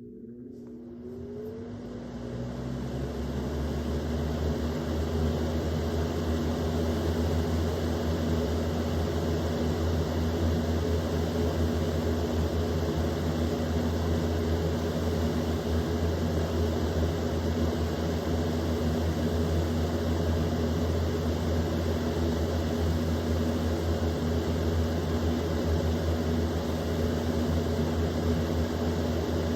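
Easy Home box fan on high speed, its electric motor spinning up with a rising whine over the first couple of seconds. It then runs steadily with a motor hum under a broad rush of moving air.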